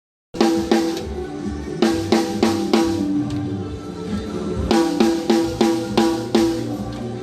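Music with a drum kit playing a beat of kick, snare, cymbals and hi-hat over held pitched notes, cutting in suddenly after a moment of silence.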